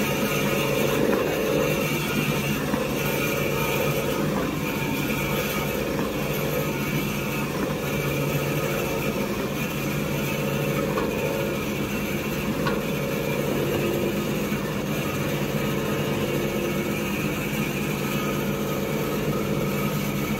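Small semi-automatic toilet-roll cutting machine running steadily, its motor and vertical blade humming as a paper log is pushed through and cut into rolls.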